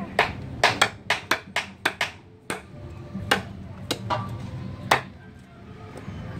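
Knife chopping food on a cutting board: about a dozen sharp, irregular strikes, coming quickly for the first two seconds and then more sparsely.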